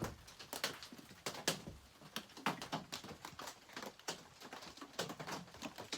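Irregular light clicks and taps of small metal chainsaw parts and hand tools being handled and fitted together, a few a second at most, with short pauses between.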